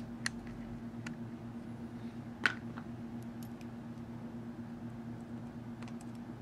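Small taps and clicks of a metal jeweler's screwdriver against the iPad 2's LCD connector as its locking latch is flipped up, with one sharper click about two and a half seconds in, over a steady low hum.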